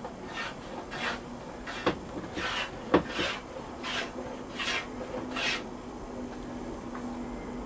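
About seven rasping strokes of a hand tool on a wooden plank, roughly one every two-thirds of a second, as a plank is fine tuned. Two sharp knocks come about two and three seconds in.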